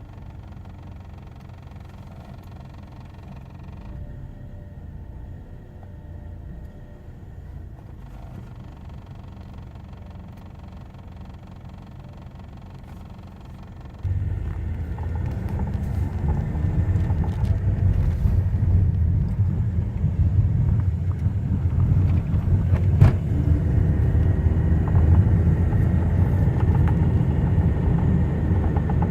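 Low road and running noise inside the cabin of a 2005 Chevy Cobalt on the move. About 14 seconds in it suddenly gets much louder and stays that way, with one sharp click near the end.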